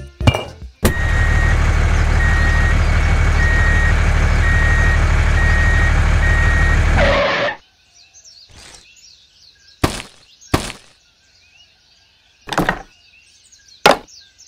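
A small motor running steadily for about six seconds, then cutting off suddenly. Afterwards birds chirp faintly and there are several short, sharp knocks.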